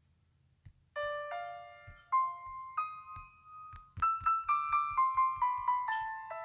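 Background piano music. A brief silence at the start, then single piano notes enter about a second in, quickening into a run of notes after about four seconds.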